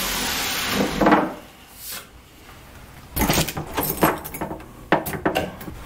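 Random orbital sander running on a plywood panel, cutting off about a second in. After a short lull, a run of metallic clicks and rattles from a doorknob being turned and a door latch working.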